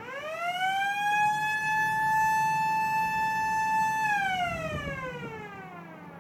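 Blasting warning siren winding up over about a second, holding one steady tone for about three seconds, then winding down slowly: the warning sounded before a covered shot in granite is fired.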